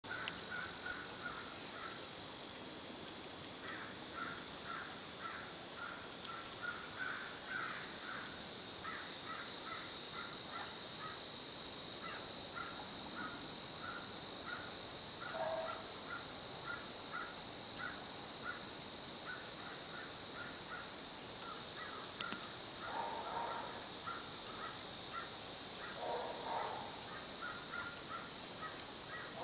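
Birds chirping over and over in short, quick notes above a steady high drone of insects. About three quarters of the way through come two longer, lower, harsher calls.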